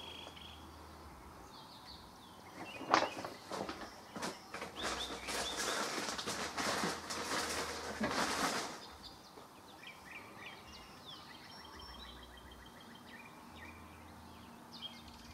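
A sharp knock about three seconds in, then several seconds of rustling and handling noise. After that the handling stops and birds chirp faintly in the background, including a short trill.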